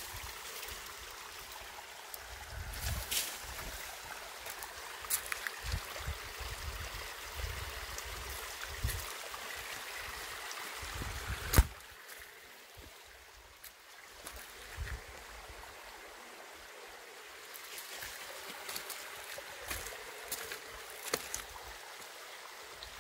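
A creek running over rocks, with scattered footsteps and brush rustling as someone walks beside it. A single sharp knock comes about halfway through, and after it the water is fainter.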